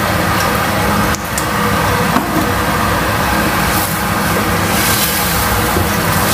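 Steady rushing noise with a low hum over a frying pan of chicken simmering in milk and sweet soy sauce on a gas stove, as a silicone spatula stirs it, with a couple of light knocks against the pan.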